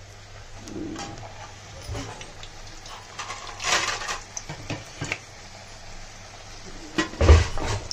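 Puri deep-frying in hot oil in a metal kadhai, a low sizzle, while a slotted metal spoon presses and turns it, clinking and scraping against the pan. A few scattered knocks, the loudest one near the end.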